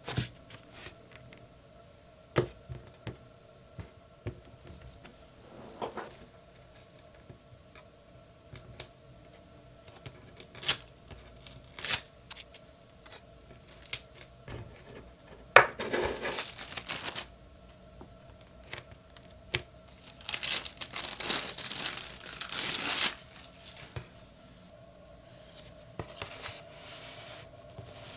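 Paper crafting by hand: release paper being peeled and torn off foam adhesive squares, with paper and tissue handled on a table. Scattered light taps and clicks, and two longer tearing stretches, one about halfway through and another a few seconds later.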